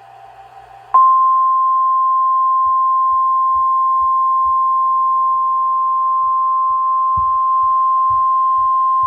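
Weatheradio Canada warning alarm tone, the single steady 1050 Hz beep sounded before a tornado warning is read out. It starts abruptly about a second in and holds at one pitch over faint radio hiss.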